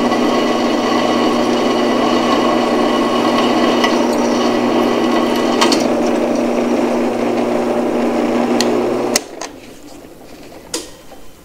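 Drill press running with its bit cutting through a steel mounting plate, a steady motor hum under the cutting noise. The motor sound cuts off suddenly about nine seconds in, followed by a few light clicks.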